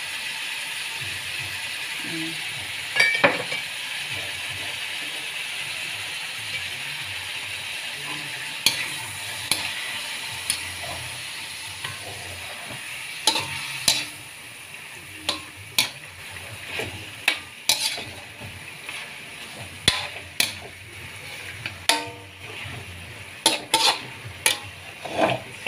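Chicken pieces frying and sizzling in a metal wok, just seasoned with fish sauce, while a metal spatula scrapes and clanks against the pan as they are stirred. The sizzle is steady and drops off about halfway through, and the spatula knocks come more often in the second half.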